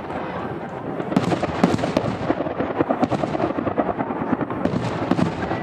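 Aerial fireworks bursting overhead: a rapid, dense run of bangs and crackling pops over a continuous rumble of echoing booms.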